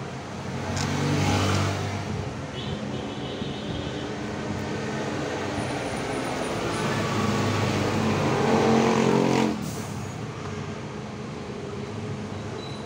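A motor vehicle engine running nearby, getting louder about a second in and again toward the end, where it changes pitch before dropping off abruptly.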